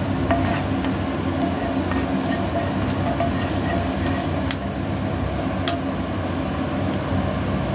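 Cumin seeds and whole spices frying in hot mustard oil in a nonstick pan, stirred with a wooden spatula: a steady sizzle over a low hum, with scattered small clicks and scrapes from the spatula.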